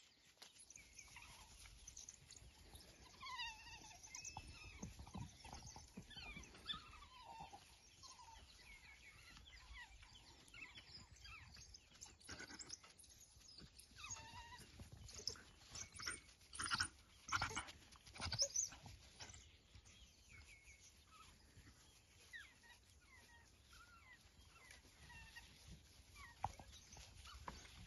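African wild dogs giving faint, high-pitched twittering calls: short rising and falling squeaks repeated throughout, with a few louder sharp sounds about two-thirds of the way through.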